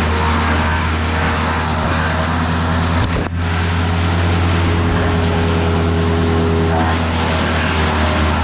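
An engine running steadily at a constant speed, a low even hum with a brief dip about three seconds in.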